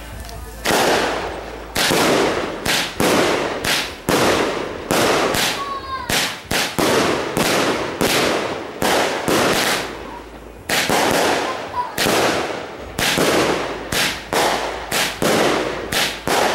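A consumer firework cake firing a rapid string of aerial shots: sharp bangs about one to two a second, each with a short echo as small star bursts break overhead.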